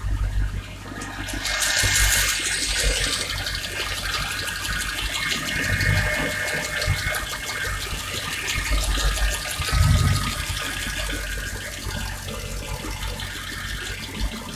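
Mercedes-Benz CLS63 AMG V8 engine running, heard up close at the engine bay as a steady rushing hiss over a low rumble that comes and goes unevenly.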